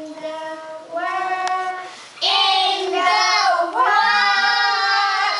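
A group of young children singing together in long held notes, louder from a little over two seconds in.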